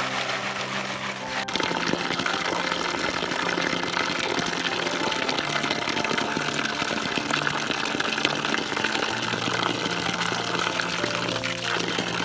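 Soft background music over a steady rush of running water that starts about a second and a half in.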